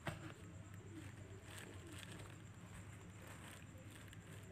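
Kittens moving about on a blanket in a cardboard box: one sharp knock just after the start, then light scratching and rustling. Faint, soft, low cooing calls rise and fall every half second or so.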